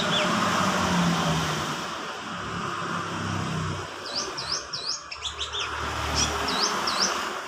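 Brown-throated sunbird (kolibri kelapa) singing actively: short runs of high, quickly repeated swooping notes, with a burst about four seconds in and another about six seconds in, over a steady background hiss.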